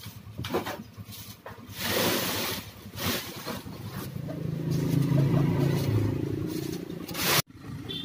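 A plastic bag rustling and scraping against the sides of a cardboard box as a hand scoops live crickets out of it. In the second half, an engine's low hum swells and then fades.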